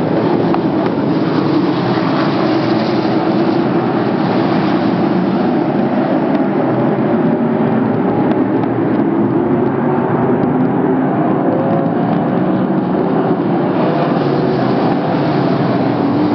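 Sprint car V8 engines running in a race: a loud, steady drone that hardly changes in pitch.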